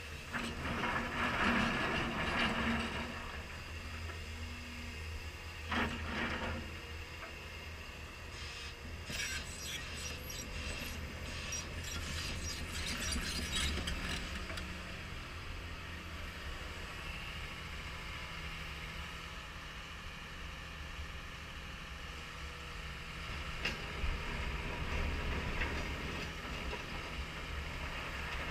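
CAT 320E excavator's diesel engine running steadily while it works a stone stockpile, with several bouts of stone rattling and clattering as the bucket scoops and dumps.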